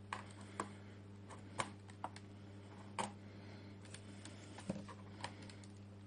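Light, irregular plastic clicks and taps, about a dozen, as a plastic pry tool works at the edge of a Lenovo Ideapad 100-15IBD laptop keyboard and keys click under the hand. A faint steady low hum lies underneath.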